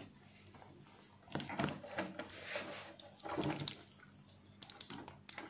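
Multimeter test probes and their plastic protective caps being handled: a few faint clicks and scrapes.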